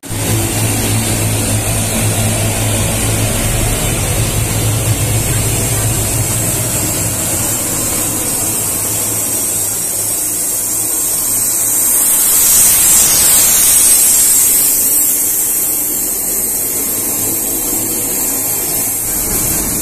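Aircraft turbine noise on an airport apron: a steady high-pitched whine over a loud hiss, with a low hum that fades out after about eight seconds. Around the middle the whine swells and sweeps in pitch.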